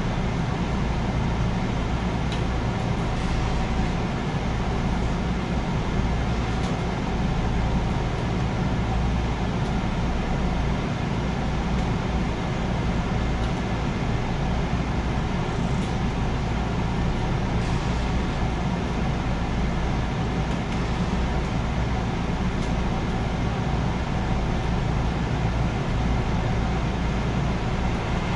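A JR West 221 series electric multiple unit running along the line, heard from inside the passenger car as a steady low rumble of wheels on the rails and running gear.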